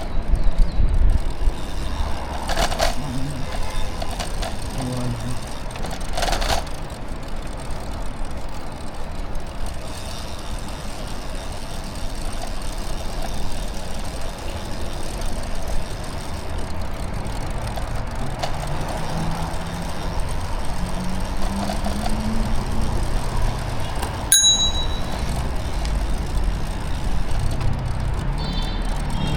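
City street traffic noise with a steady low rumble, heard from a moving bicycle. A low hum rises slowly in pitch through the middle. A bicycle bell dings once sharply, with high ringing, late on, and rings briefly again near the end.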